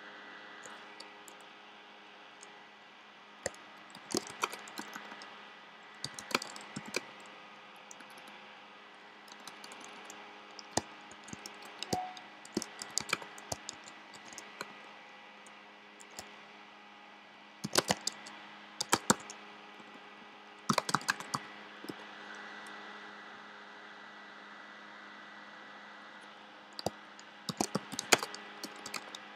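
Typing on a computer keyboard in short, irregular bursts of keystrokes, over a steady background hum.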